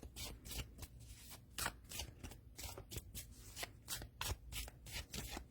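A deck of thin, flexible oracle cards being shuffled by hand: a faint, uneven run of soft card slaps and flicks, about three or four a second.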